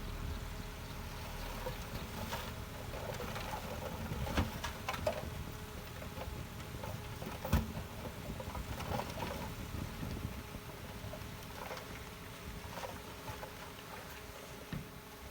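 Diesel engine of heavy earthmoving machinery running steadily, with scattered clanks and knocks; the sharpest knock comes about halfway through.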